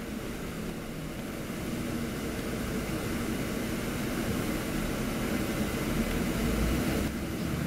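VDL DB300 double-decker bus on the move, heard inside the upper deck: a steady engine hum and road rumble, growing slightly louder a couple of seconds in.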